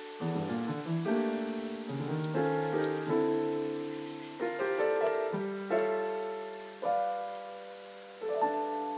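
Background piano music: gentle chords struck about once a second, each note ringing out and fading before the next.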